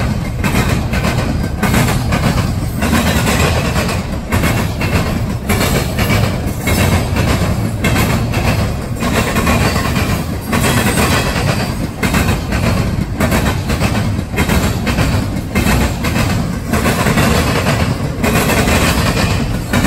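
Double-stack intermodal train's well cars rolling past: a steady, loud rumble and clatter of steel wheels on the rails, with a run of clicks as the wheels pass.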